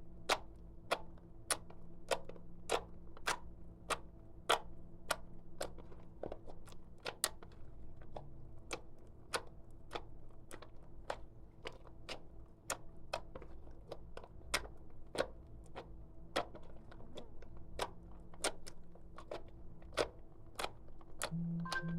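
Clear slime being kneaded and pressed by hand, giving sharp clicks and pops at about two a second, over a faint steady hum.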